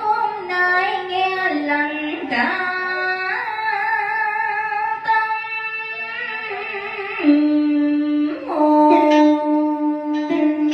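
A woman singing a slow, gliding cải lương melody into a microphone over instrumental backing, holding a long note in the second half.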